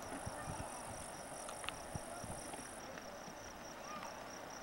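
Insect buzzing high and steady over a faint outdoor background, stopping about three seconds in.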